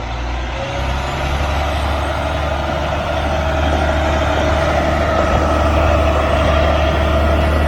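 All-wheel-drive front-discharge concrete mixer truck climbing a steep driveway under load with all wheels locked in, its diesel engine and drivetrain running with a steady whine. The sound grows gradually louder as the truck comes up.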